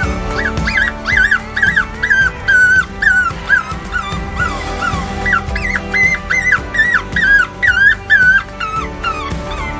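Electronic predator caller playing a cottontail rabbit distress call: a string of short, wavering high-pitched squeals, about two or three a second, in two runs with a brief pause about halfway through.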